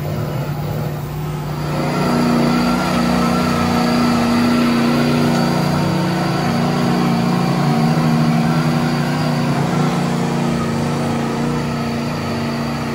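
Lifted trucks' engines held at high revs under full load as they pull against each other in a tug-of-war. The sound is a steady engine note that builds about two seconds in and holds, with only small shifts in pitch.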